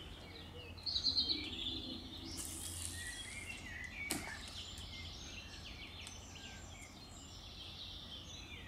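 A cast with a fishing rod: about two seconds in, line hisses off the reel for about a second. About four seconds in a single sharp knock follows as the rig hits the water. Songbirds chirp throughout.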